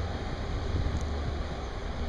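Low, steady rumble of a passing inland container ship's engine, with a haze of wind noise on the microphone.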